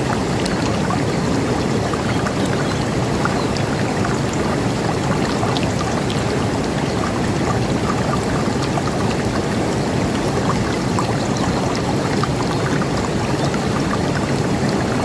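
River water rushing steadily, an even, unbroken flow with a few faint short splashes or ticks above it.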